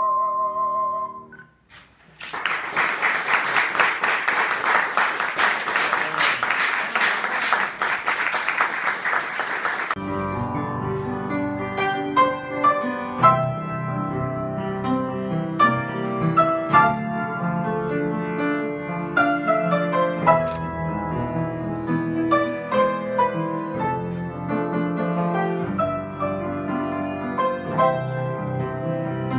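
A held note with vibrato ends about a second in, and after a brief pause the audience applauds for about eight seconds. Then a piano starts playing, with a steady stream of single notes.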